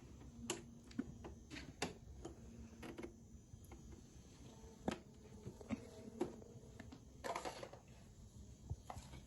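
Faint, scattered clicks and light knocks from small objects being handled, with a short rustle about seven seconds in.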